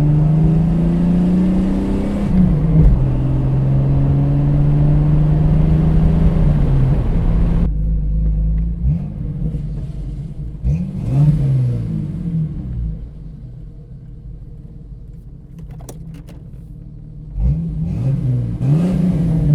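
1989 Jeep Cherokee XJ's 4.0-litre inline-six exhaust through a Flowmaster 40 Series Delta Flow muffler, held at steady revs for several seconds, then settling to idle. It is then blipped several times, each rev rising and falling quickly.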